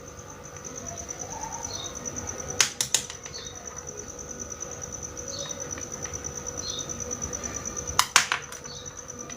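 Two pairs of sharp clicks, like small utensils tapping miniature cookware, over a steady high-pitched whine, with faint short chirps in between.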